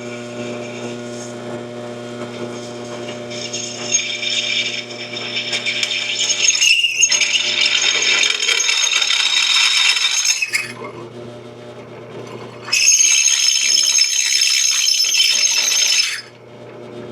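A drill press motor runs steadily while a KNKUT drill bit bites into a hardened-steel bracket. The cutting gives a high, grating screech in two spells: from about 3 s in to about 10 s, and again from about 13 s to 16 s.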